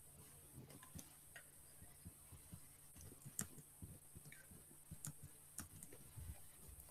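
Near silence: faint room tone with a few scattered faint clicks.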